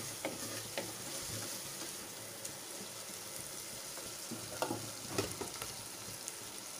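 Sliced onions sizzling in hot oil in an earthenware clay pot as they are sautéed toward brown, with a few light scrapes of stirring near the start and again about two-thirds through.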